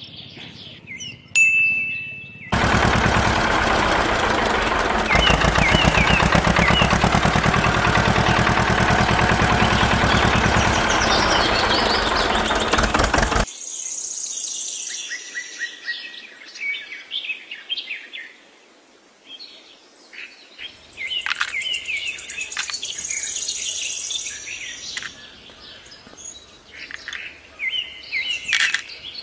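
Birds chirping throughout. For about eleven seconds a loud machine with a very fast pulsing rhythm runs, then cuts off abruptly, leaving the chirps and a few light clicks.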